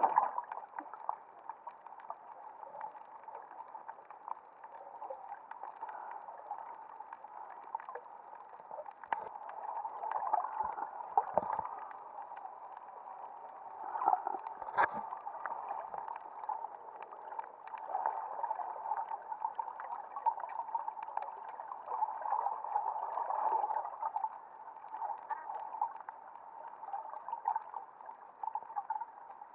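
Muffled underwater noise picked up by an action camera in its waterproof housing: a murky, fluctuating gurgling with scattered sharp clicks and knocks, several of them close together in the middle.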